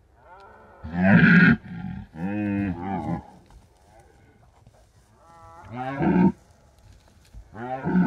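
Red deer stag roaring in the rut: four deep, drawn-out bellows with a strong rough pitch. The loudest comes about a second in, followed by one around two to three seconds, another near six seconds, and a short one near the end.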